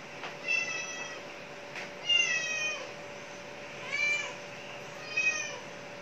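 A cat meowing four times, each call under a second long, with pauses of about a second between them.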